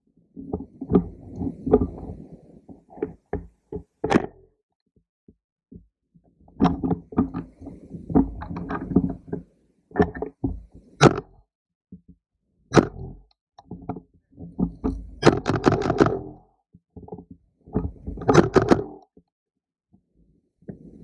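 Handling and movement noise on a gun-mounted camera: irregular rustling and bumping, with sharp knocks and clicks scattered through it and a few quiet gaps.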